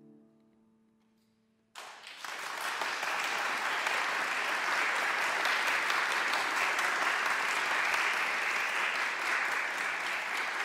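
The final grand piano chord fading away, a moment of quiet, then a concert audience breaking into applause suddenly about two seconds in.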